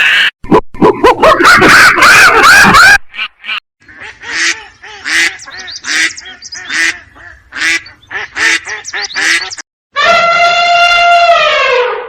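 A series of animal calls edited one after another: a loud, dense burst of calls, then a run of short repeated honking calls, then one long pitched call that drops in pitch at the end.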